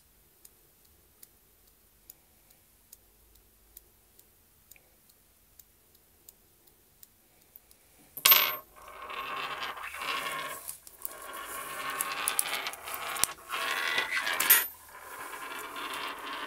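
Watch buckle and leather strap being handled as a wristwatch is put on: a sharp metallic clink about halfway through, then several seconds of scraping and rustling, with another loud clink near the end. Before that there are only faint clicks, about two a second.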